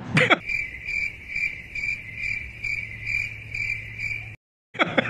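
Cricket chirping, a clean high pulsing chirp about twice a second, over a low steady hum; it cuts off abruptly into a moment of dead silence.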